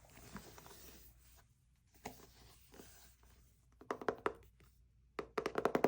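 Hands handling the cardboard packaging of an Apple Watch box: faint scraping with a few light taps, then a quick run of clicks near the end.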